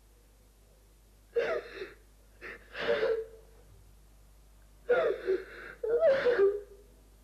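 A teenage girl sobbing: a few short bursts of gasping, wheezing breaths and voiced sobs with pauses between them.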